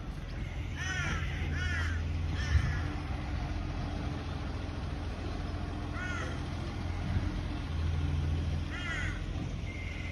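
A crow cawing: three caws about a second apart starting near a second in, then single caws around six and nine seconds. A steady low engine rumble runs underneath.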